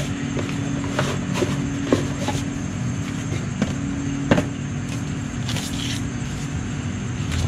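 Cardboard box, plastic bags and paper being handled and unpacked: crinkling and rustling with a string of sharp taps, the loudest about four seconds in, over a steady low hum.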